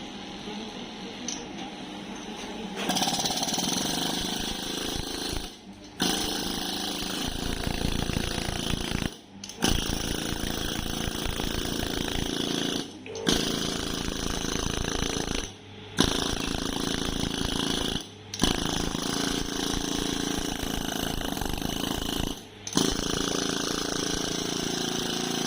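Handheld electric percussion massager running with a steady, loud buzz from about three seconds in, breaking off briefly every three seconds or so as it is lifted and set down again.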